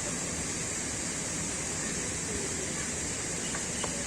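Steady rushing of running water, an even hiss that holds without change.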